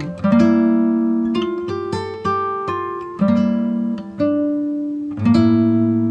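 Background music of plucked acoustic guitar: notes and chords picked about once a second, each left to ring and fade.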